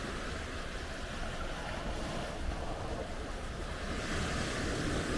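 Gentle sea waves washing up over a sandy, rocky beach: a steady, softly swelling wash of surf with no sharp breaks.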